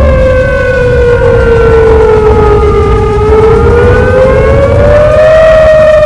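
Outdoor tornado warning siren wailing, very loud and close. Its single tone sinks slowly in pitch and then climbs back up.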